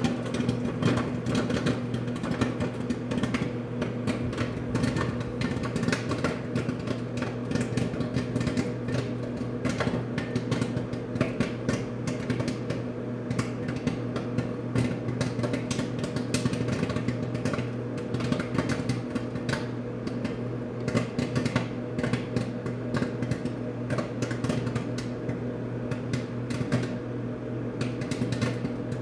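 Popcorn kernels popping rapidly and irregularly inside a running Samsung microwave oven, over the oven's steady hum.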